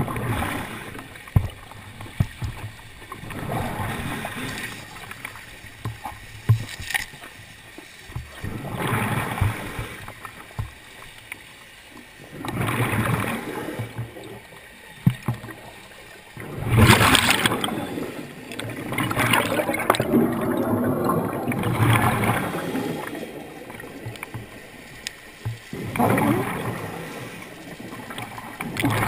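Scuba diver breathing through a regulator underwater: bursts of exhaled bubbles come in swells every few seconds, with quieter stretches between.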